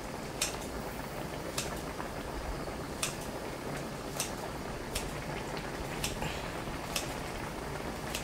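Kitchen scissors snipping through kimchi held over the pot, a sharp snip about once a second, about eight in all. Underneath, the kimchi stew bubbles steadily as it simmers in a cast-iron pot lid.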